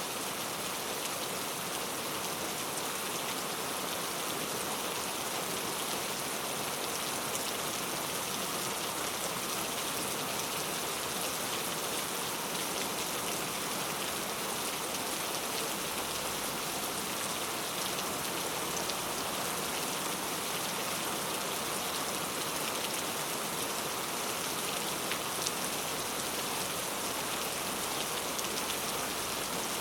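Heavy rain falling steadily, an even hiss of many drops with fine scattered patter.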